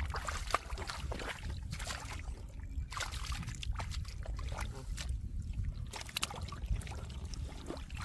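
Shallow muddy water sloshing and splashing in irregular short bursts, over a steady low rumble.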